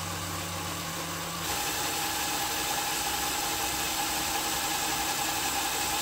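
Power drill running under load, a 1/8-inch Spyder Mach Blue bit cutting into a hardened steel shaft. The sound shifts and gets a little louder about a second and a half in.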